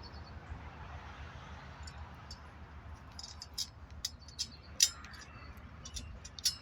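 Light metallic clicks and rattles of bolts and bracket parts being handled while a weed eater mount is screwed onto a bike's metal rod. The clicks are scattered through the second half, with a couple of sharper ticks, over a faint steady hiss.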